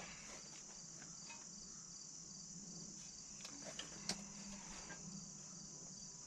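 Crickets chirping steadily in the background, with a few faint clicks partway through.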